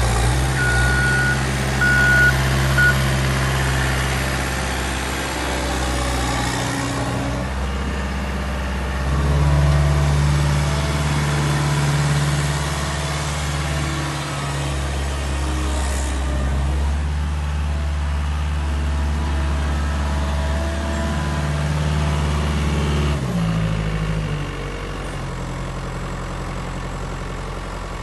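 Cat 242B3 skid steer's diesel engine running, its speed shifting up and down several times and loudest for a few seconds about ten seconds in. Three short high beeps sound near the start.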